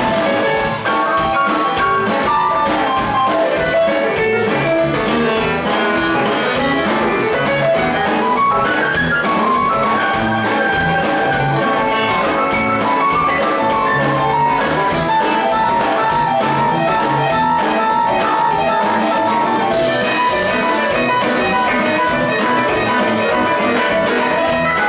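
Live rock band with electric guitars, drums and a horn section playing an instrumental passage, with a sustained lead line that climbs in pitch about eight seconds in and then holds long notes.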